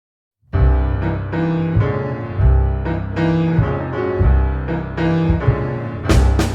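Background music: after half a second of silence a piano-led track with a deep bass line starts. Near the end, drums and cymbals come in.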